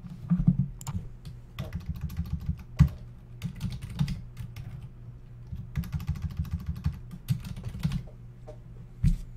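Typing on a computer keyboard: quick runs of key clicks in several bursts with short pauses between.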